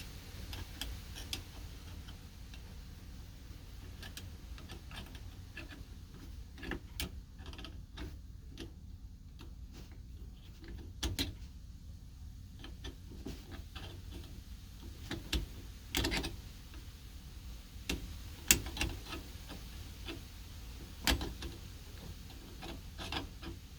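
Irregular clicks and light knocks from hands reconnecting and tightening the dishwasher drain hose and its clamp at a garbage disposal, with a low steady hum underneath.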